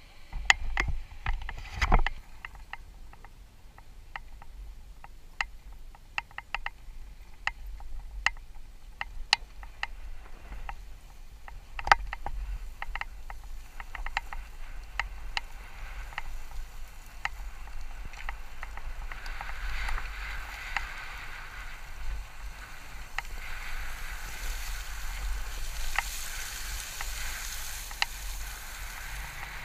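KTM dirt bike rolling over loose coal-waste gravel, with many sharp clicks and knocks from stones and the bike rattling, over a steady low rumble. A gritty hiss of tyres on the loose surface builds in the second half. No engine note stands out.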